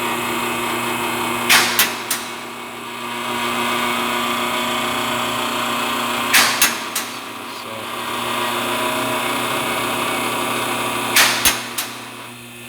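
Electric-hydraulic car lift raising a car, its pump motor running with a steady hum. Sharp clicks come in quick groups of three, about every five seconds, as the lift's safety latches pass their stops.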